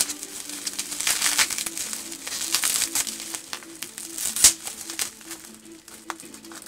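Bubble wrap being pulled off and crumpled by hand: irregular crinkling rustles, with a sharp crackle about four and a half seconds in.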